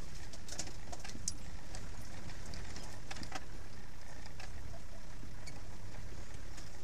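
Land Rover engine running with a steady low drone as the vehicle crawls along a rough, overgrown track. Irregular sharp clicks and knocks come over the top of it.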